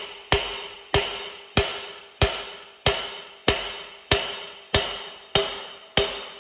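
Steady hammer blows on metal, about one and a half a second, each ringing briefly: a seized main shaft on a Vicon Haybob 300 tedder being knocked down to free it, and it is starting to move.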